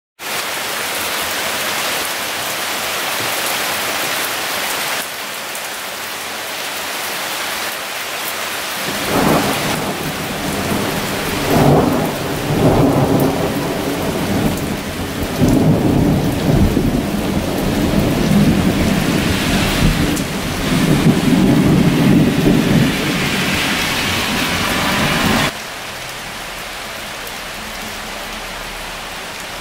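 Rain falling steadily in a thunderstorm. A long rumble of thunder rolls in about nine seconds in, swells for about fifteen seconds, then drops away suddenly, leaving the rain.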